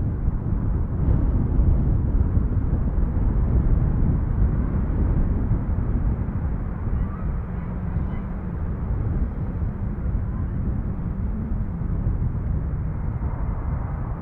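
Low, steady rumble of aircraft engines, slowly fading.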